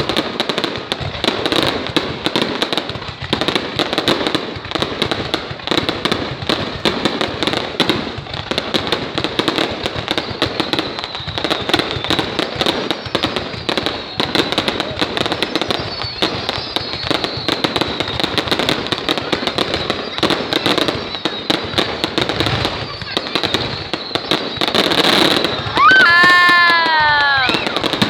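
Fireworks display: dense, continuous crackling with many rapid pops, and a loud wavering pitched whistle near the end.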